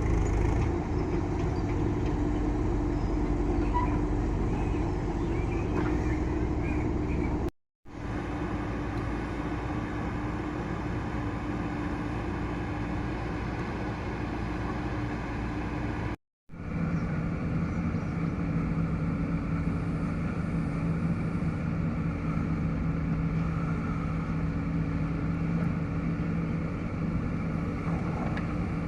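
Diesel engines of a JCB backhoe loader and tractors running steadily at work, with a steady engine hum. The sound cuts out completely twice, briefly, and the engine note is lower and more even after the second cut.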